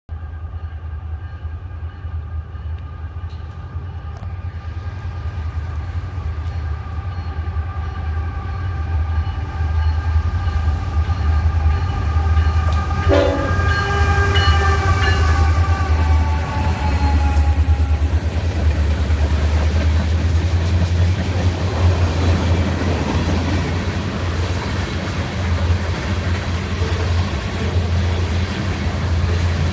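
CSX freight train led by a GE ET44AH locomotive sounding its multi-note air horn as it approaches and passes. The horn chord drops in pitch as the locomotive goes by about 13 seconds in and stops around 18 seconds. After that, the rumble and clatter of the passing tank cars takes over, under a steady low rumble.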